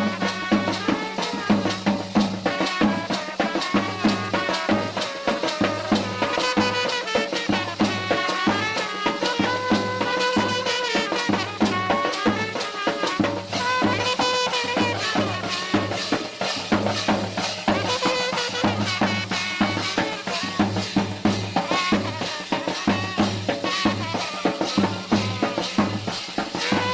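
Band party music: a melody line over steady, fast drumming with rattling percussion.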